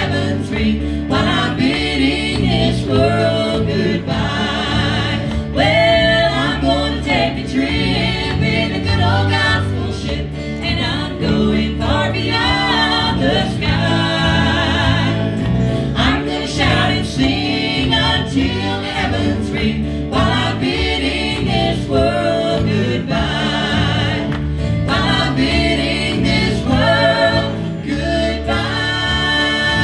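Live gospel band performing, several voices singing together over guitars and keyboard. Near the end the singing stops and a held instrumental chord rings on.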